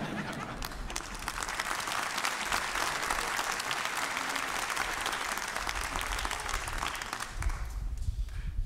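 Audience applauding, a dense patter of many hands clapping that thins out near the end, with a few low thumps just before it stops.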